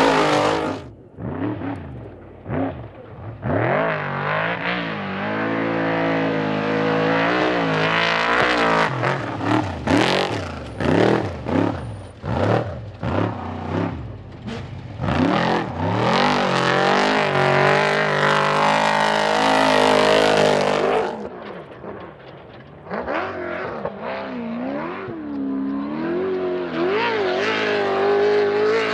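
Off-road race vehicles, a Trophy Truck and a Class 1 buggy, with their engines revving hard through dirt turns. The engine note sweeps up and down and chops in and out in quick pulses in the first half. It drops away about three quarters through, then another engine rises in pitch near the end.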